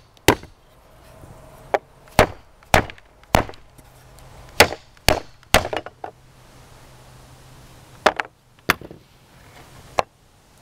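Sharp wooden knocks, about eleven in irregular bunches with a pause in the middle. A rusted hinge that has frozen up is being struck, still on its piece of board, to break it loose without a hammer.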